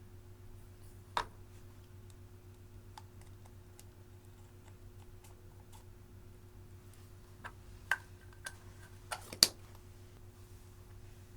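Slime being handled, giving a few sparse sharp clicks and pops: one about a second in, then a cluster near the end, the loudest about nine seconds in. A faint steady hum lies underneath.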